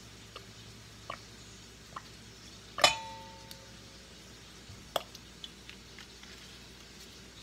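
A soy sauce bottle clinks once against a stainless steel mixing bowl, and the bowl rings briefly. A few light ticks and taps from handling come before and after it.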